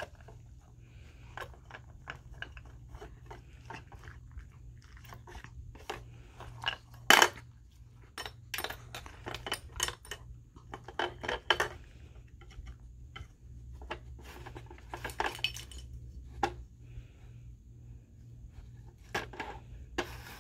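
A dog working a treat puzzle toy with its mouth: irregular clicks, knocks and clatters as the puzzle pieces and the board shift about, with one sharper knock about seven seconds in.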